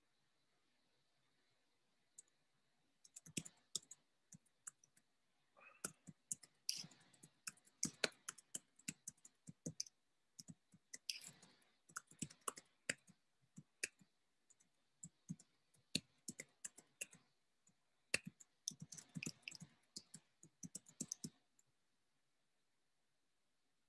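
Faint typing on a computer keyboard: irregular runs of quick key clicks that start about three seconds in and stop a couple of seconds before the end.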